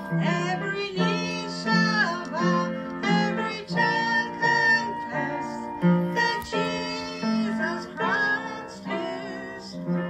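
A song with a woman singing over plucked guitar in a steady rhythm.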